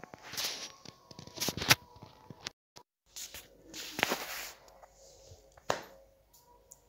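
A few sharp clicks and knocks over faint room noise, with a short dead-silent gap about two and a half seconds in.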